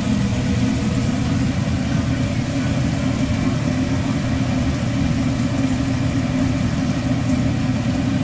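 Steady low mechanical drone of commercial kitchen equipment running, over the hiss of fish fillets sizzling on a flat-top griddle under a grill press.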